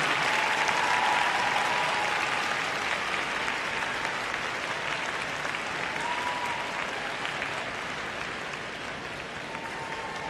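Arena crowd applauding, slowly dying down, at the end of a figure skating program.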